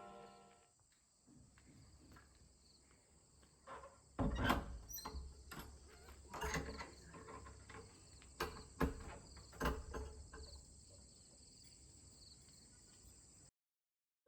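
Insects chirring steadily in a high, even band, with a run of irregular knocks and clicks between about four and ten seconds in. The sound cuts off suddenly near the end.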